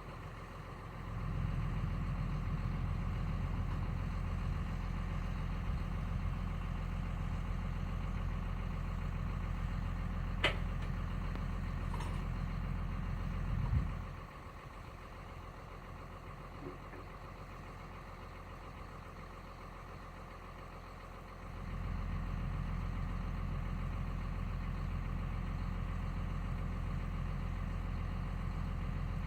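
Excavator's diesel engine running, getting louder about a second in, dropping back to a quieter idle around fourteen seconds in, then getting louder again a few seconds before the end. A sharp clank about ten seconds in.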